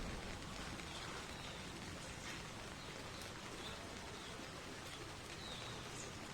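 Steady rain falling on foliage with scattered drips, and several short, thin, high chirps from oriental white-eyes, some slurring downward.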